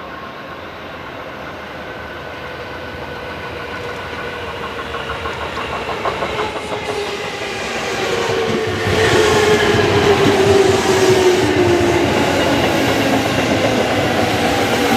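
JR 205 series 5000-subseries electric train pulling into a station. Its wheels clack over the rail joints, and it grows louder as it approaches and passes close, loudest from about two-thirds of the way in. A motor whine falls steadily in pitch as the train slows.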